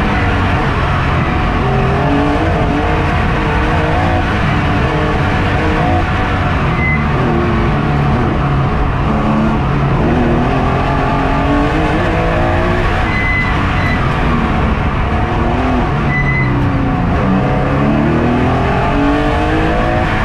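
Race car engine heard from inside the cockpit on an autocross run, its pitch climbing and dropping again and again as the driver accelerates and lifts through the turns. A few short tire squeals cut in along the way.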